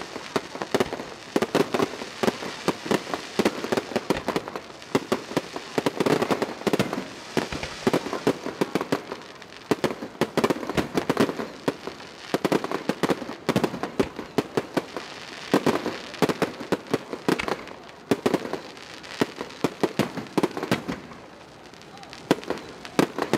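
Aerial fireworks going off in rapid, overlapping bangs and crackles, with a short lull near the end.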